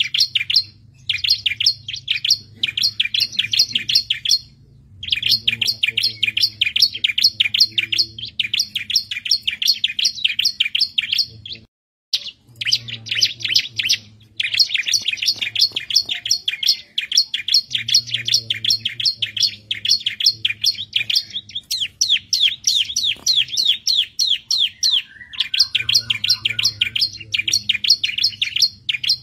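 Bar-winged prinia (ciblek) singing in fast chattering phrases of rapidly repeated high notes, each phrase a few seconds long with short pauses between, over a faint low hum. The sound cuts out completely for a moment about twelve seconds in.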